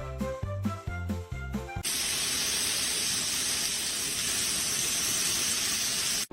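Music with a steady plucked bass beat, which breaks off about two seconds in for a steady, loud hiss that lasts until a sudden cut.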